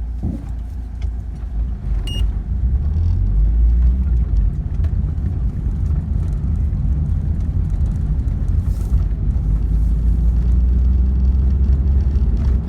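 Car being driven, a steady low rumble of road and drivetrain noise that grows a little louder after about three seconds. A brief high beep comes about two seconds in.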